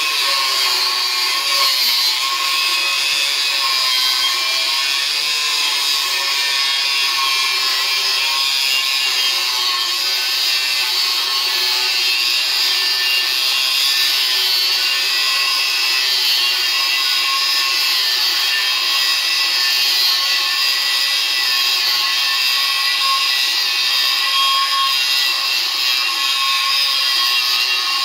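Kalibr 755 W angle grinder cutting through 5 mm steel plate with a small, worn-down cutting disc: the motor runs under load with a steady grinding whine that holds its pitch without a break.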